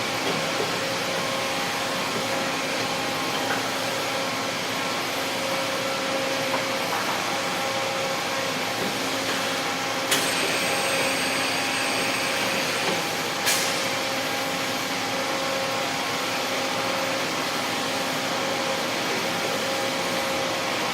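HB150 CNC table boring machine running steadily, a constant mechanical hiss with several steady whining tones. Midway there are two sharp clicks about three seconds apart, with an extra higher whine between them.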